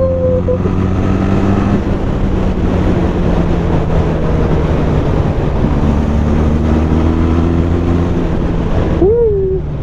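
Benelli TRK 502X parallel-twin engine running at steady revs through its stock exhaust, the pitch holding with a slight rise partway through. A short rising-and-falling tone sounds near the end.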